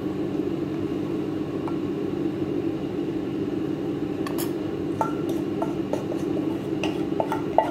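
Light clinks and scrapes of a utensil against a metal pot as the cooked chicken stew is scraped out into a bowl, a few at first and more near the end, over a steady low hum.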